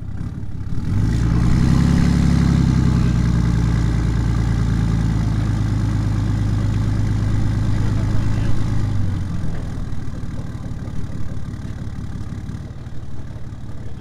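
A vehicle engine revs up about a second in, holds at a steady raised speed for about eight seconds, then drops back toward idle.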